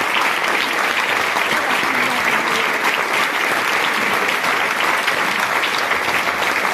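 Audience applauding steadily, a dense, even clatter of many hands clapping.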